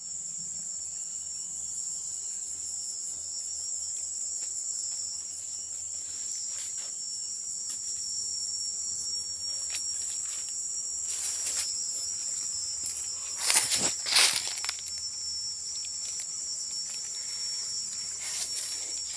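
Steady high-pitched chorus of insects droning without a break. About three-quarters of the way through, a short cluster of sharp crackles rises above it.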